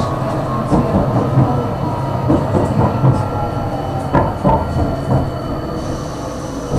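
Tram running along its rails, heard from inside the car: a steady low rumble of the wheels with scattered knocks and faint thin whining tones.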